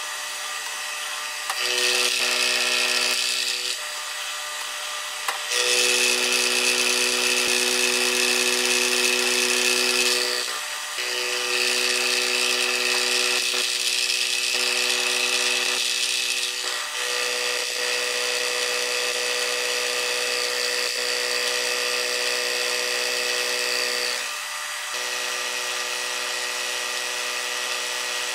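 Milling machine cutting aluminum with a large 2-flute end mill: a steady whine and hum with a loud hiss of the cut, in several passes that ease off briefly between them.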